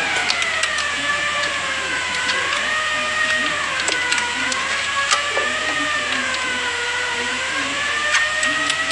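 A small motor running with a steady whine whose pitch drifts slowly up and down, with scattered light clicks.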